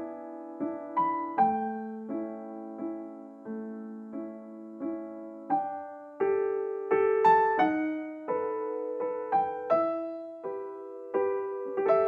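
Background piano music: a slow, gentle melody of struck notes over held chords.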